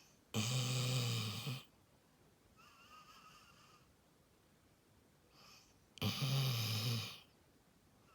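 Beagle snoring in its sleep: two loud snores about five and a half seconds apart, each a little over a second long.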